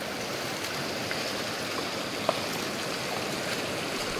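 Steady rushing of stream water, with one brief tick a little over two seconds in.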